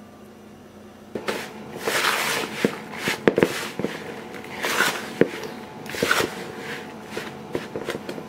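Hands working crumbly dough of flour, butter and sourdough starter in a plastic mixing bowl. It starts about a second in with irregular rustling and squishing, broken by small knocks and clicks against the bowl.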